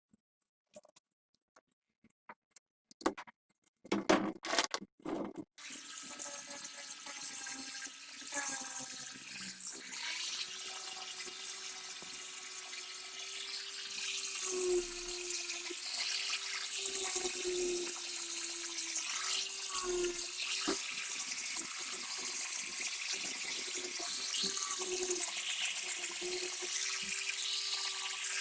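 Water running steadily from a tap, a hiss with a wavering tone, growing a little louder. It sets in after a few sharp knocks and clicks.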